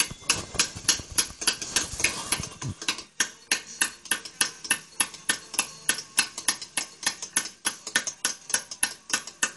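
Hammer tapping a steel chisel into a stone slab in quick, even strokes, about four sharp clinks a second, as a relief design is carved by hand.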